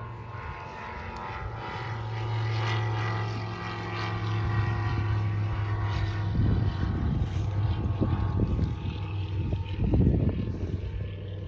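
Small propeller plane flying overhead, a steady engine drone that grows louder a couple of seconds in, with a rougher low rumble in the second half.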